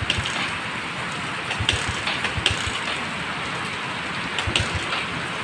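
Steady hiss of rain, with a few scattered low thumps and light clicks.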